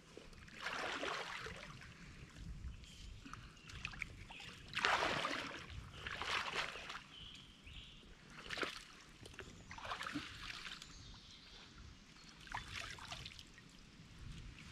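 Pond water splashing and sloshing as a person wading waist-deep works a rope around a submerged log: irregular swishes every second or two, the loudest about five seconds in.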